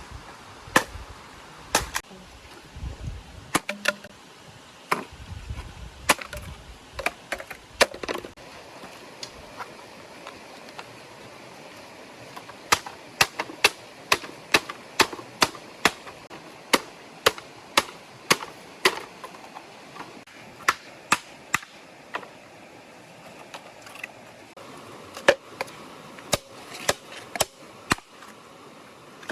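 Repeated sharp chopping knocks, a few scattered at first and then in a steady run of about two a second, over the steady wash of a stream.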